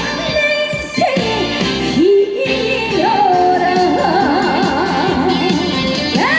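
Live trot music: a band backing with a female vocal line holding long, wavering notes with heavy vibrato.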